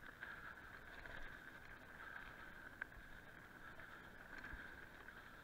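Faint steady hiss of a mountain bike rolling down a loose dirt trail, with a sharp click a little past halfway and a low knock near the end.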